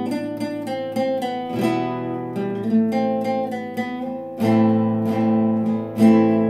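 Classical guitar played solo: a melody of quick plucked notes over bass notes. About four and a half seconds in, it gets louder, with fuller bass.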